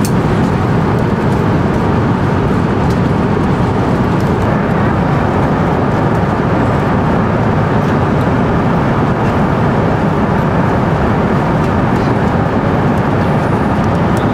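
Steady cruise cabin noise of an Airbus A350-900 airliner: an even, loud rush of airflow and engine noise heard from an economy seat.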